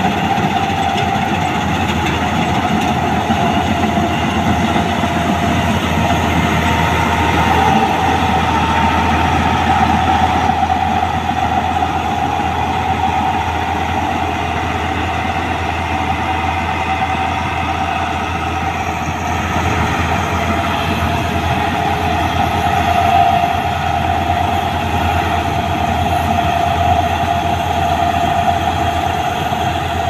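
Malkit 997 combine harvester at work cutting a standing crop: its engine and threshing machinery running steadily and loudly, with a constant whine over the rumble.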